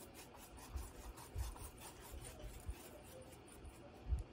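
Paintbrush bristles rubbing wet gesso across a stretched canvas in faint scratchy strokes, with a few soft low bumps.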